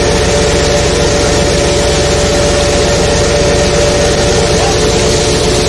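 Fishing boat's engine and deck machinery running steadily: a constant hum with a couple of held tones over a broad rushing noise.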